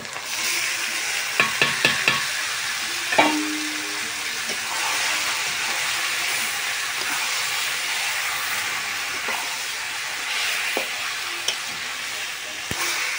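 Marinated chicken hitting hot oil and onion-spice paste in an aluminium karahi, sizzling steadily as it is stirred and scraped with a metal spatula. A quick run of sharp metal clinks between one and two seconds in and a ringing clank at about three seconds come from the steel bowl and spatula striking the pan.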